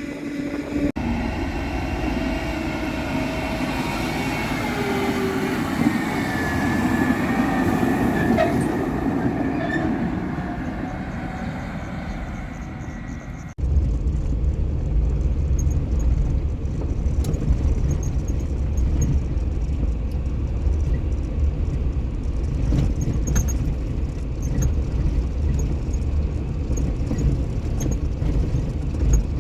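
Heavy farm machinery running at silage harvest. First comes an engine and driveline whine whose pitch drifts up and down. Then, after an abrupt cut about halfway through, a deep steady engine rumble with scattered rattles and clicks.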